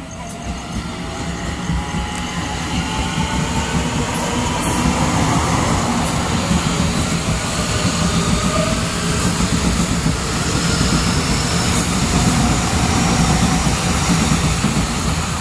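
Taiwan Railway EMU900 electric commuter train running past along the platform. A whine from its electric drive glides up in pitch over the first few seconds while the running noise builds, then holds steady and loud.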